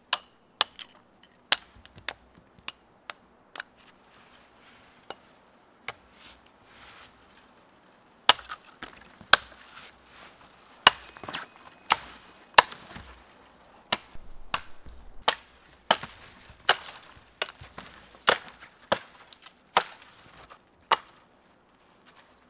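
A blade chopping on a long dry wooden pole, knocking off its side twigs. Sharp single strikes, sparse at first, then from about eight seconds in louder and quicker, about one and a half a second.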